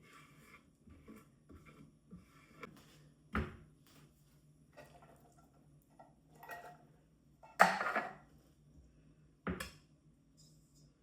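Dishes and cutlery being handled: a few separate clinks and knocks, the loudest about two thirds of the way through, with smaller clicks between.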